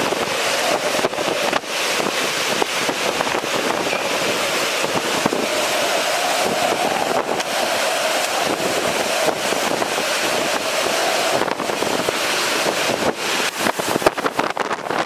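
Category 4 hurricane winds blowing hard and steadily, with a wavering whistle in the gusts and wind buffeting the microphone. Many short clicks and knocks, likely rain and debris striking, come through it, thickest near the end.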